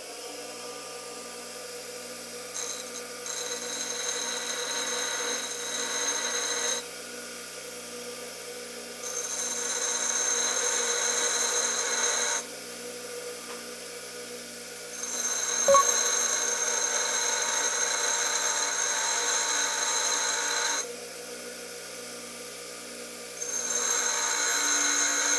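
Bench grinder running steadily while a high-speed-steel lathe tool bit is ground on the corner of the wheel to form the rake face. Four passes of a few seconds each, when the bit is pressed on, bring a louder grinding hiss with a high whine over the motor hum, and there is a single sharp click during the third pass.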